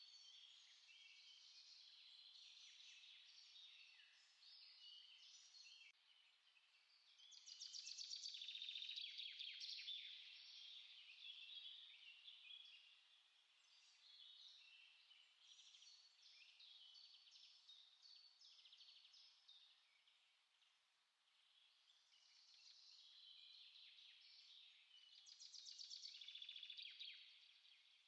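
Small songbirds chirping and singing faintly, many short overlapping calls. A rapid trill stands out about eight seconds in and again near the end.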